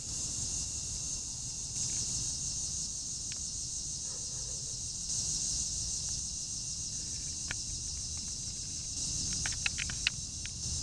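Steady high-pitched chorus of evening insects in a summer yard, swelling and easing every few seconds over a low rumble, with a few faint clicks near the end.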